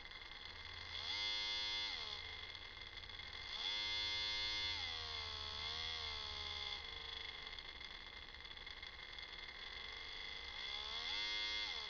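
K'nex 12-volt electric gear motor whining as a 0–12 V DC train controller's knob is turned up and down, speeding it up and slowing it down three times, its pitch rising and falling with the speed.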